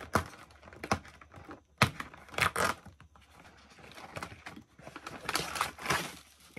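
Irregular clicks, taps and crinkly rustling of things being handled, with a few sharper knocks near the start and two longer rustling stretches in the middle and near the end.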